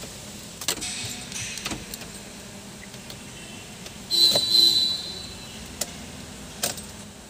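Tata Hexa switched to ignition-on with the engine not running: a few light clicks, and about four seconds in a high electronic warning chime from the instrument cluster, lasting about a second, as it reports a failed position lamp.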